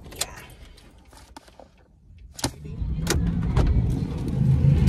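Sounds inside a car: a few sharp clicks and knocks, then about halfway in a low rumble sets in and grows loud, holding steady.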